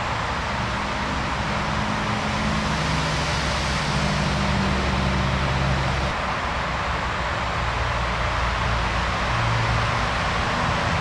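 A loud, steady rushing roar with a low drone underneath that shifts in pitch, like engine noise.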